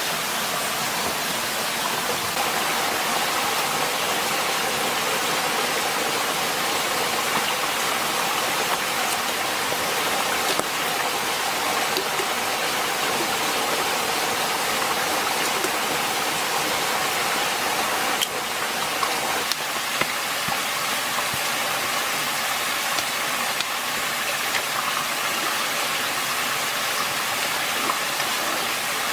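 Steady rushing of flowing water, like a nearby forest stream, with a few faint knocks of handling.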